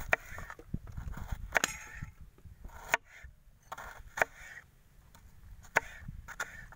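Kitchen knife slicing a red onion on a wooden cutting board: a soft crunch as the blade goes through the layers, then a sharp knock of the blade on the board, five times at about one cut every second and a half.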